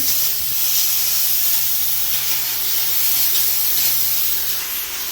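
McCulloch Deluxe canister steam cleaner jetting hot steam from its nozzle: a steady, loud hiss. A low steady hum runs underneath and stops near the end.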